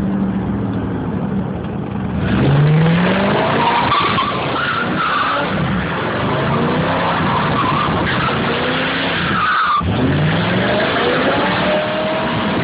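1989 Camaro IROC-Z28's V8 revving hard while its rear tyres squeal and skid through donuts. The engine pitch climbs about two seconds in, drops briefly near the ten-second mark, then climbs again.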